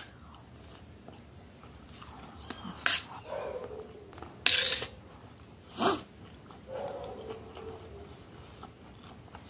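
A metal spoon scraping and clinking against a metal plate three times, the middle one a short scrape, with quiet chewing between.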